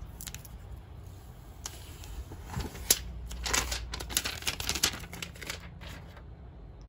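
Clear plastic protective film being peeled off a wireless charger pad and handled: a run of crinkling, crackling rustles, densest through the middle, with one sharp click about three seconds in.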